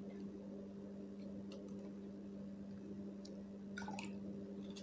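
A steady low hum, with a few faint soft ticks as a metal spoon and small plastic cup are handled over a plastic mixing bowl while acetic acid is poured into the vinegar solution.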